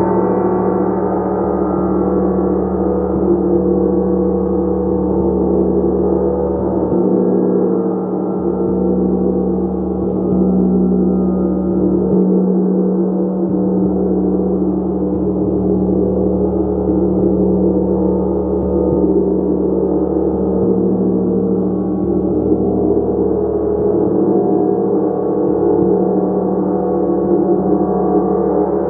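Gong played continuously: a dense, steady wash of many overlapping sustained tones, its deep low hum swelling and fading every few seconds as it is kept sounding.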